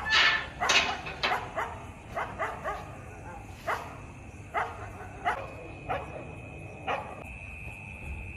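A dog barking repeatedly, about a dozen short barks. They are loudest and come quickest in the first three seconds, then fall to about one a second.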